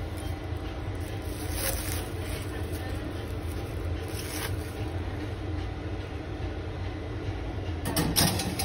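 A ceramic bowl set down and slid onto a steam oven's wire rack, a short burst of scraping and a knock near the end. A few faint rustles of plastic wrap come earlier, and a steady low hum runs underneath.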